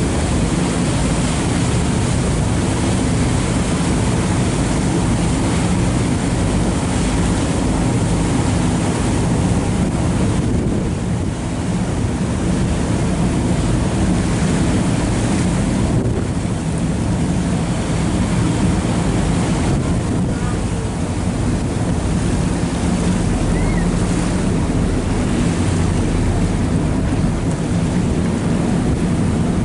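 A boat's engine droning steadily, mixed with wind buffeting the microphone and the wash of water.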